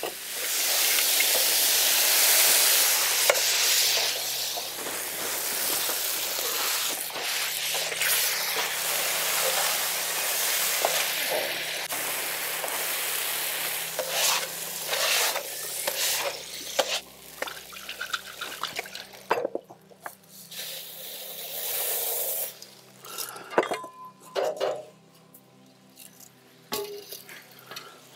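Chopped tomatoes and chili frying in clarified butter on a large round steel griddle, sizzling hard while spatulas stir and scrape them. About two-thirds of the way through, the sizzle dies down, leaving scattered scrapes and taps of the spatula on the steel.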